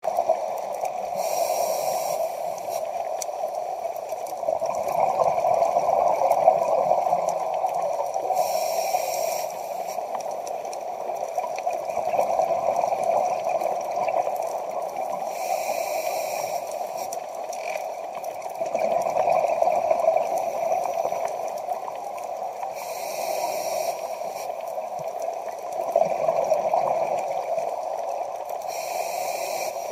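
Scuba diver breathing through a regulator underwater, in a slow regular cycle of about one breath every seven seconds. Each breath has a hissing swell and a short burst of bubbles, five in all.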